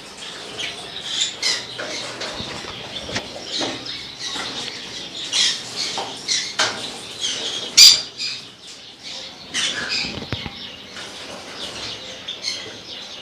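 Lovebirds chirping and squawking in short, high, scattered calls, with wing flutters as the disturbed birds move about. A single loud sharp click sounds a little past the middle.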